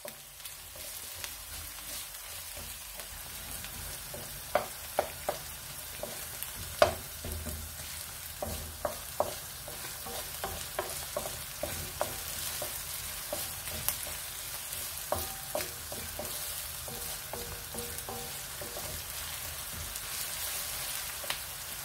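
Chopped onions sizzling in oil in a non-stick kadai, stirred with a wooden spatula that knocks and scrapes against the pan at irregular moments. The onions are being lightly sautéed, only until their colour just starts to change.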